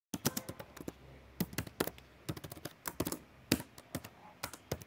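Typing on a laptop keyboard: irregular keystroke clicks in uneven runs with brief pauses.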